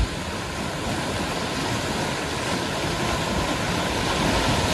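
Whitewater of a river rapid rushing steadily close by, with a brief knock at the very start.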